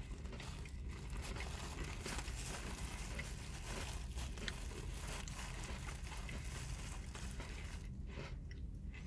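Faint crunching and chewing of Waffles and Syrup Oreo cookies, with small clicks over a steady low hum.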